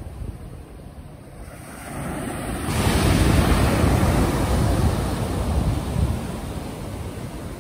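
Ocean surf: a wave breaks and rushes in a couple of seconds in, swelling to its loudest and slowly fading, over a steady low rumble of wind buffeting the microphone.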